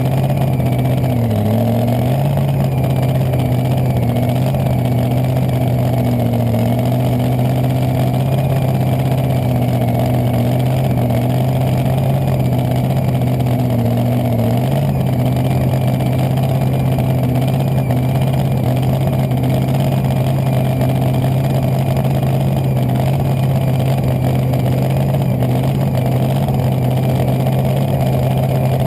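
Top Alcohol dragster's V8 engine running steadily at a constant low speed, its pitch wavering a little in the first half and then holding even, with no hard acceleration.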